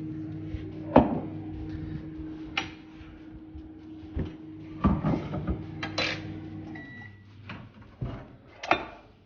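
A steady low electrical hum with scattered sharp clicks and knocks of things being handled. The hum stops about seven seconds in, and a short high beep sounds just after.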